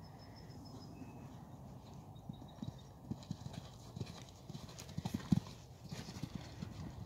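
Hoofbeats of a ridden horse on sand arena footing: dull rhythmic thuds that start about two seconds in and grow louder, loudest around five seconds in as the horse passes close.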